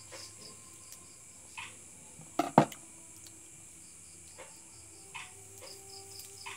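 Crickets chirping in short, evenly spaced pulses, with a few soft clicks and one sharp knock about two and a half seconds in.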